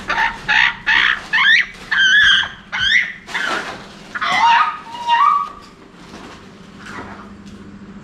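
African grey parrot squawking and whistling while it is handled, a fast run of loud calls with sliding, wavering pitch that dies away after about five seconds.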